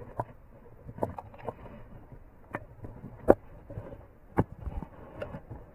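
Irregular sharp knocks and clicks with light rustling, handling noise close to a body-worn action camera as the wearer moves about in the grass; the loudest knock comes a little past halfway.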